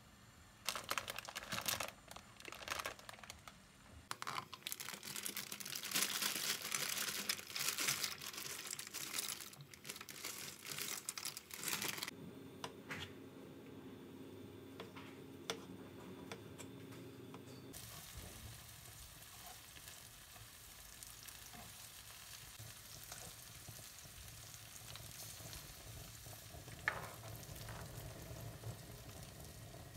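Kitchen sounds in short edited cuts: irregular clatter and crinkling, then food sizzling in a pan with a steady hiss.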